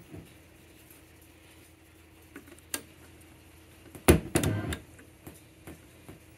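Sharp mechanical clicks and knocks from working the controls of a tube stereo console: one click about three seconds in, then a quick cluster of louder clicks a second later and a few lighter ticks. A faint steady hum runs underneath.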